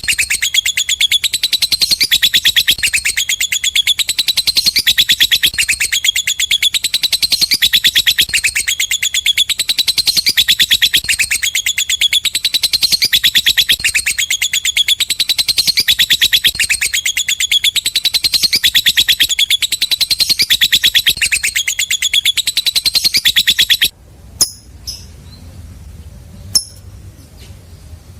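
Lovebird singing its long, continuous 'ngekek' song, a very fast unbroken chatter. It cuts off suddenly near the end, leaving only a few short chirps.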